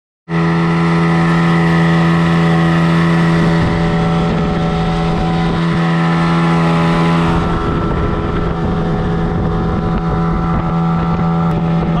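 A pair of outboard motors, one of them a Calon, running steadily at speed and driving a small boat across open water. The engine drone is loud and even, and it starts suddenly at the very beginning.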